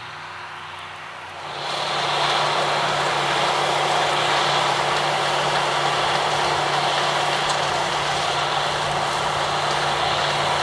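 Heavy harvest machinery running steadily: a diesel engine hum under a dense rushing mechanical noise, stepping up in loudness about a second and a half in.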